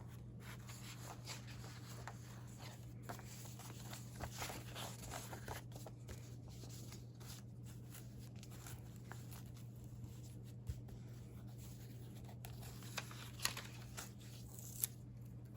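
Paper pages of a recipe binder and a small recipe booklet being handled and turned, with scattered soft rustles and light taps over a steady low hum.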